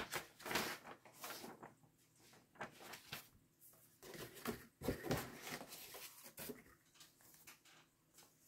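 Paper rustling and crackling as folded instruction sheets are unfolded and handled, in short irregular rustles, loudest about five seconds in.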